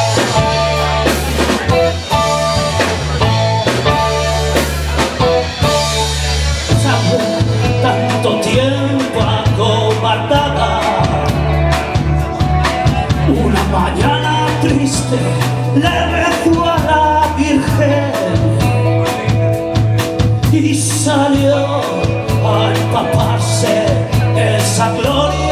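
A live rock band playing: electric guitar, electric bass and a drum kit driving a steady beat, with a male singer's voice over them.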